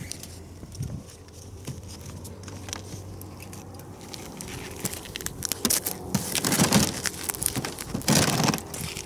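Boots and body shifting on crusty ice, with scattered small clicks and rustles, then louder crunching twice in the second half as the angler gets up beside the fishing hole.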